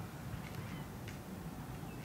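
Quiet outdoor ambience: a steady low rumble with a few faint, short bird chirps.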